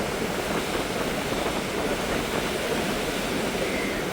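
Steady rush of a large volume of flowing water, an even continuous roar with no breaks.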